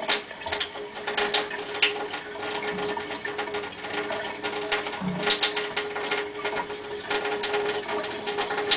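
Fingers rubbing lotion into grease on a forearm, making irregular wet clicking and rubbing, over a steady hum.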